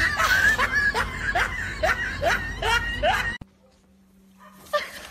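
A person snickering with laughter, a quick run of short rising 'hee' sounds about two or three a second, which cuts off suddenly after about three and a half seconds.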